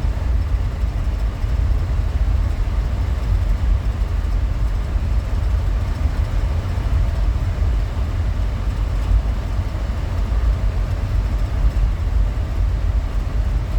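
Minivan driving on a dirt road, heard from inside the cabin with the windows up: a steady low road and engine rumble with a faint hiss over it.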